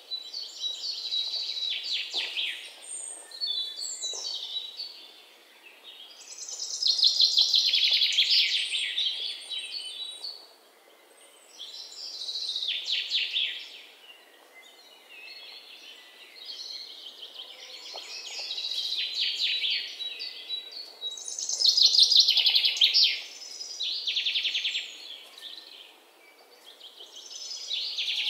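Birds singing: rapid trilled phrases, each about two seconds long, repeating every few seconds.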